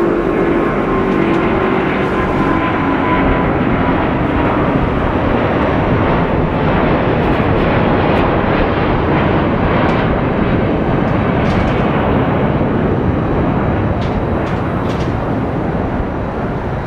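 Jet airliner engines at takeoff thrust: a loud, steady roar. An engine tone falls in pitch over the first few seconds as the aircraft passes.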